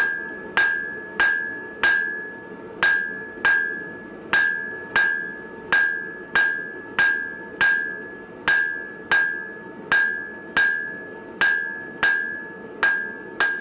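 Blacksmith's hand hammer striking red-hot coil-spring steel on an anvil while forging a wood chisel. About twenty blows come at a steady pace of roughly one and a half a second, and each leaves a clear ring that dies away.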